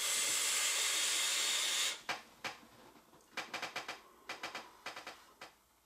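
A long hit drawn on an e-cigarette: a steady hiss of air and vapour through the atomizer for about two seconds. A string of faint, uneven clicks and crackles follows.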